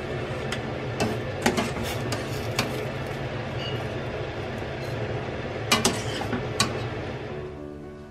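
Water boiling in a stainless steel pot on a gas burner while a wire mesh strainer scoops out cooked shrimp, clinking against the pot several times, about one to two and a half seconds in and again around six seconds. The boiling fades out near the end.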